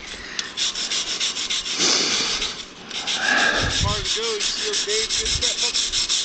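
Stick-welding arc from an engine-driven welder, crackling and hissing steadily with an even pulse of about six a second, as welding rods cut and weld steel pipe.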